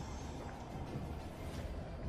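Steady low rumble of outdoor night ambience with a faint hiss above it, and no blast or sharp bang.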